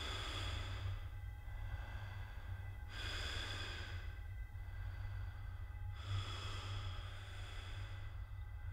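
Slow, heavy breathing, one long breath about every three seconds, over a steady low hum.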